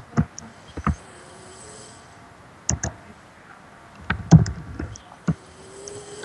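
Soft snoring from a sleeper, two thin whistling breaths about four seconds apart, amid several sharp clicks and knocks, the loudest a little past halfway.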